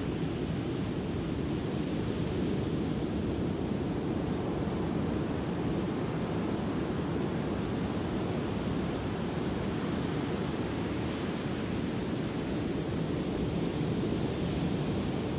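Surf breaking steadily on a sand beach, with wind on the microphone.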